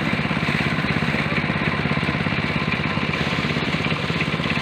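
A small engine running steadily at an even speed with a fast, regular pulse.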